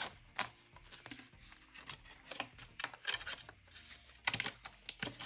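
Paper banknotes rustling and flicking as bills are counted out by hand and slid into a paper cash envelope, with a burst of sharper crinkles about four seconds in.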